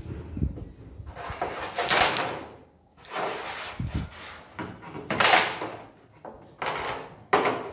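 Carrom being played on a wooden board: several knocks, each followed by a second-long sliding rasp, a second or two apart.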